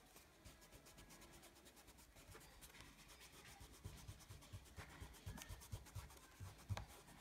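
Faint rubbing of fingertips smudging black oil pastel on sketchbook paper, with a few soft dabs in the second half.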